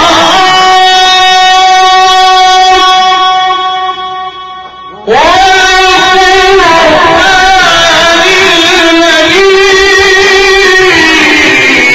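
A man's voice chanting Quran recitation in the drawn-out mujawwad style through a microphone: one long held note on a steady pitch, a brief breath about four seconds in, then a second long ornamented phrase that winds up and down in pitch.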